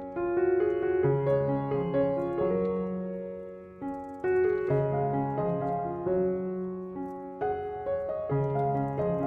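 Background piano music: a gentle melody of notes and chords over sustained bass notes, with a brief pause just before the middle.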